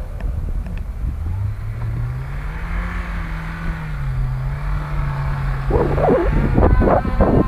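An off-road vehicle's engine revving under a low rumble: its pitch rises over about two seconds, eases back and holds steady. About six seconds in, louder wavering sounds come in higher up.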